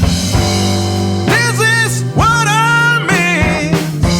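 Rock band with drums, bass guitar, electric guitar and organ playing a gap between sung lines, with two long, bending lead notes over the beat.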